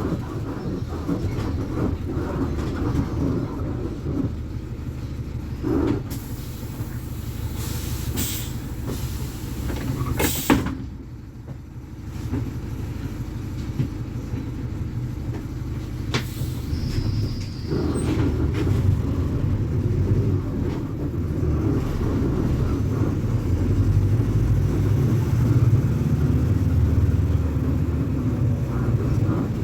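VolksBus 9.160 OD Euro V diesel bus engine running with a steady low rumble. About ten seconds in there is a short burst of hiss, then a quieter spell, and from about eighteen seconds in the engine grows louder.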